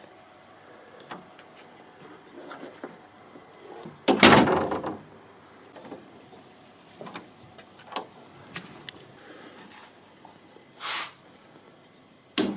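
A shed door being worked: a loud knock as the door shuts about four seconds in, fading over about a second, then scattered light clicks of the handle and latch and a short scrape. A second loud knock comes right at the end.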